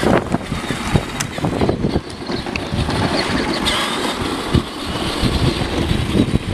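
Steady low rumbling noise with many irregular knocks and wind on the microphone.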